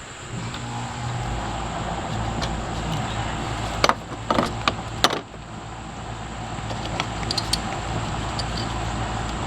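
A low, steady engine hum sets in about a second in and keeps on. A few sharp metallic clinks come around the middle, from hand work with bolts, nuts and screws on a radiator mount.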